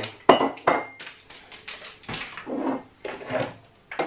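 Ceramic mugs clinking and knocking against each other as one is handled. There are two sharp clinks in the first second, each leaving a brief ring, then softer knocks and clatter.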